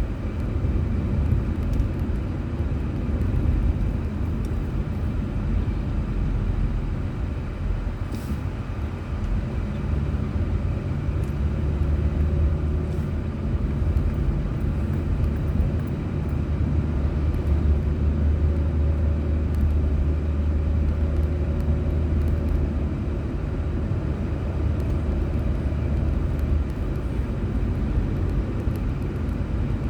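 A car's road and engine noise, heard from inside the cabin: a steady low rumble. A deeper steady hum comes in for a stretch in the middle.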